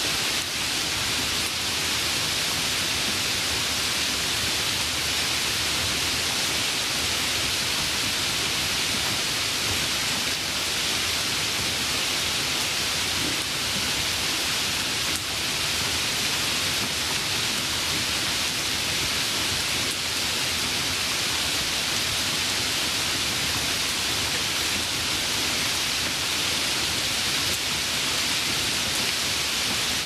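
Steady rain: an even, unbroken hiss with no separate drops or thunder.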